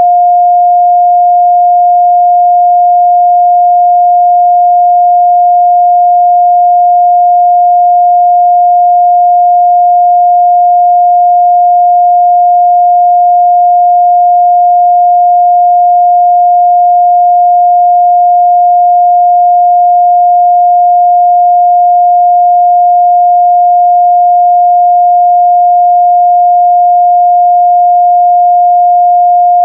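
A steady, loud 708 Hz sine-wave test tone, one pure pitch held unchanged.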